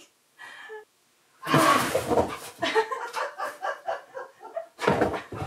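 Husky-malamute dog vocalizing in a string of whining, talking-style sounds, starting loudly about a second and a half in and rising again near the end.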